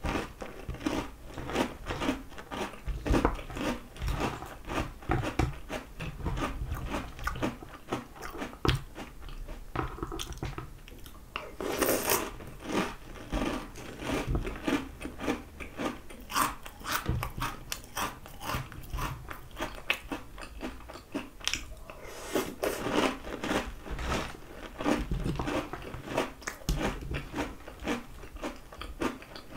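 Crunching and chewing of mouthfuls of Oreo O's chocolate cereal rings in milk, a continuous run of crisp, irregular cracks as the rings are bitten down.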